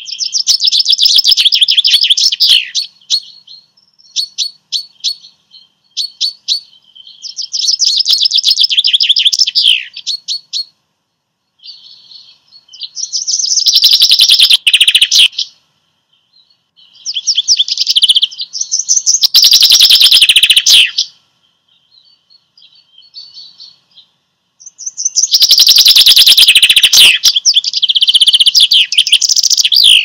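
A songbird singing in loud phrases of rapid trills and warbles, each a few seconds long, separated by short pauses with a few softer scattered notes between them.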